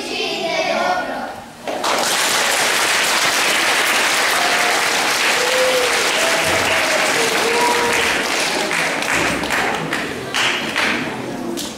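Audience clapping, starting about two seconds in and keeping up steadily until near the end, with a few faint voices heard through it.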